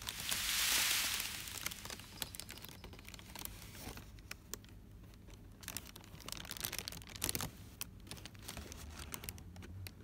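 Close rustling and crinkling, loudest in the first second and a half, then scattered light clicks and crackles from handling, over a steady low hum.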